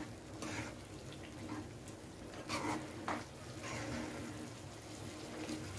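A spatula stirring grated bottle gourd in milk in a non-stick pan: several soft, wet scraping strokes over a faint steady hiss from the hot pan.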